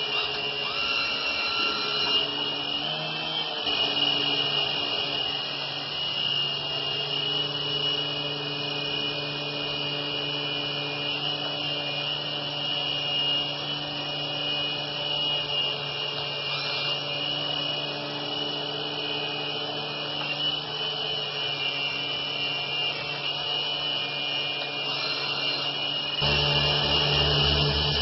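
Micro RC helicopter in flight: the steady high whine of its small electric motors over the buzz of its spinning rotors. About two seconds before the end it gets louder, with a fast, even rotor flutter.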